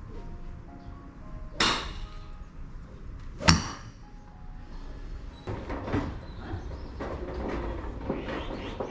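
Golf driver striking a ball off a tee with a sharp crack about three and a half seconds in, the loudest sound. A lesser crack comes a couple of seconds earlier, and fainter knocks and clicks follow through the second half.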